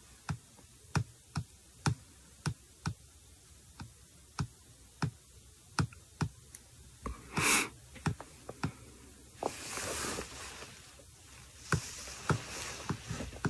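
Fingernails tapping on a smartphone touchscreen, typing a search: sharp, separate clicks at an uneven pace of one or two a second. A brief soft whoosh comes about halfway through, and a quieter hiss a couple of seconds later.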